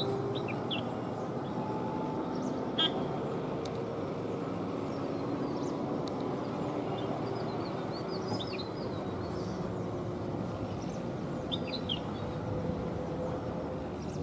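Steady low drone of the ATR 72-600's twin turboprop engines and propellers on approach, with a few faint pitched tones that glide slowly. Birds chirp in short high calls several times over it.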